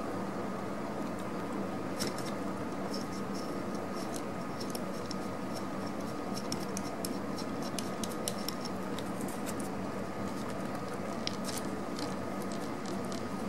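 Light, scattered clicks and scratches from fingers handling a plastic wiring connector and a small screw on a motorcycle throttle body, over a steady background hum.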